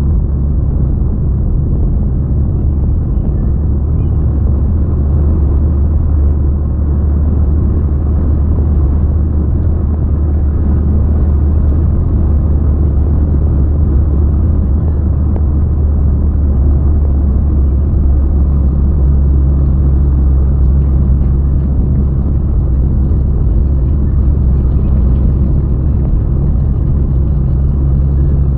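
Road and engine noise inside a moving car's cabin at highway speed: a steady low rumble.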